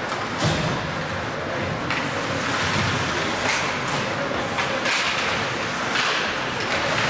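Ice hockey play in a rink: skate blades scraping and hissing on the ice in short strokes over steady arena noise.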